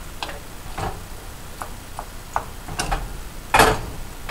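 Wooden spoon knocking and clicking against a small metal saucepan as simmering tangerines are stirred and mashed: scattered light ticks, with one louder knock about three and a half seconds in.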